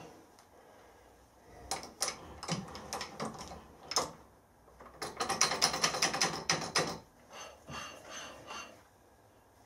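Milling machine spindle carrying a dial test indicator, worked by hand while the head is trammed: scattered metallic clicks, then a dense, fast clatter of clicks about five seconds in that lasts about two seconds, then a few more clicks.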